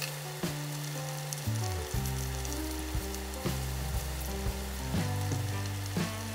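Chicken broth at a rolling boil in an uncovered pot, bubbling and crackling, with whole vegetables in it. Background music with a bass line plays underneath.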